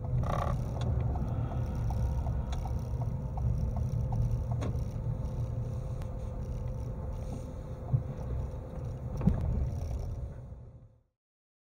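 Low, steady rumble of a vehicle's engine and tyres heard from inside the cab as it rolls slowly onto a gravel pull-off, with light ticking in the first few seconds and two sharp thumps near the end before the sound fades out.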